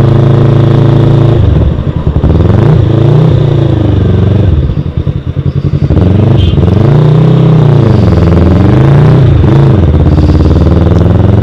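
Yamaha YZF-R3's parallel-twin engine heard from the rider's seat while riding, its pitch falling and rising several times as the throttle is eased off and opened again. About halfway through it drops lower and sounds choppy before climbing again.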